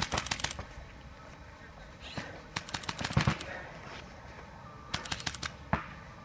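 Paintball markers firing in rapid strings of shots, about eight to ten shots a second: one string at the start, a longer one around three seconds in, and a short one about five seconds in, with a single louder crack just after.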